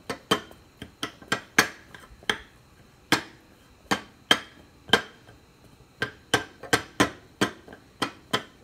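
A spatula stirring broccoli in a small metal frying pan, knocking and scraping against the pan's side and bottom: an irregular run of sharp clanks, each with a brief metallic ring, about two or three a second.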